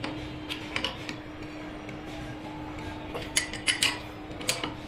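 Adjustable steel wrench clinking against the fittings of a diesel fuel injection pump: a couple of sharp metallic clicks about a second in, then a quick cluster of louder clinks past the three-second mark and another pair near the end, over a steady hum.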